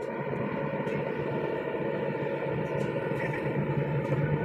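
Hydraulic excavator's diesel engine running under load, heard from inside the operator's cab as the machine handles a bucket-load of anchor chain: a steady hum of several tones that grows a little louder.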